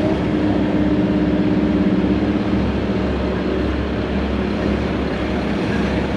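Volvo excavator's diesel engine running steadily, heard from inside the cab as the machine swings its boom and dumps a bucket of dirt into a dump truck.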